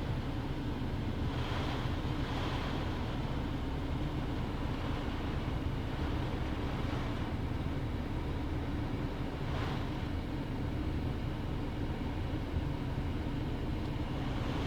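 Typhoon wind blowing, a steady low rushing noise with brief surges about two seconds in and near ten seconds.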